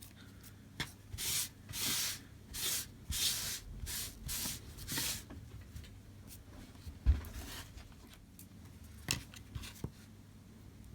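About seven short scraping strokes across the display, a blade or scraper working softened adhesive residue off the LCD. These are followed by a single dull knock about seven seconds in and a few light clicks.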